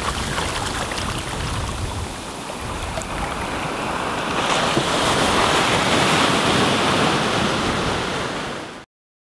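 Ocean surf washing in over sand in the shallows, a steady wash of breaking waves, with wind rumbling on the microphone. It fades out to silence near the end.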